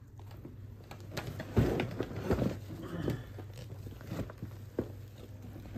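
A hard-shell suitcase being opened and its packed contents handled: scattered clicks and rustling, with a few soft thumps about two seconds in, over a low steady hum.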